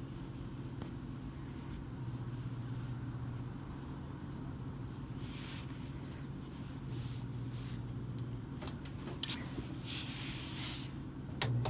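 A steady low hum, with soft rustling of trouser fabric as it is handled and smoothed, and short hissy patches near the end.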